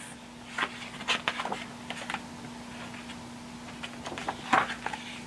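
Page of a hardcover picture book being turned by hand: scattered paper rustles and small handling clicks, the loudest about four and a half seconds in, over a steady low hum.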